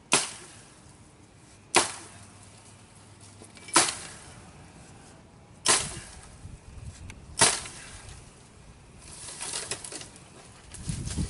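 Five sharp chops of a blade into brush and branches, about two seconds apart. About two-thirds of the way through they give way to a stretch of crackling and rustling as brush is pulled and moved.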